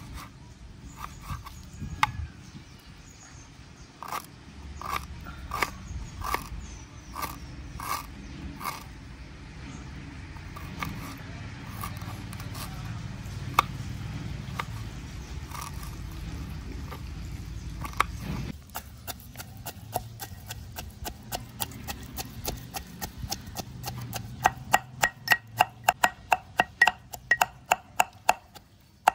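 Kitchen knife chopping fresh ginger on a wooden board, irregular knocks of the blade through to the wood. About eighteen seconds in it changes to ginger being pounded in a small iron mortar: quick metallic strikes that ring, about three a second near the end.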